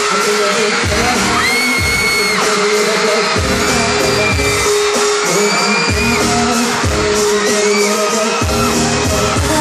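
A male singer singing live into a handheld microphone over a pop backing track with a steady beat, amplified through a PA in a large reverberant hall. Fans let out high-pitched screams, one held scream about two seconds in.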